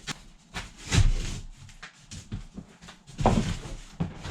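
A cut wooden board being worked up into place against the framing, knocking and scraping against the wood, with two louder knocks about a second in and about three seconds in.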